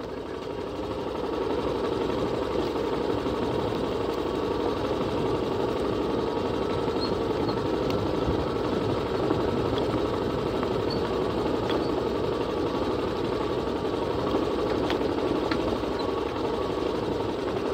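Motorcycle engine running steadily while riding along a rough dirt track, picking up slightly about a second in, with a few faint clicks and rattles.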